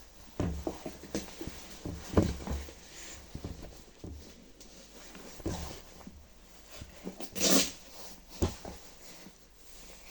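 Handling of clothes and boots: a series of soft knocks and thumps with clothing rustle, and a brief louder rustle about seven and a half seconds in.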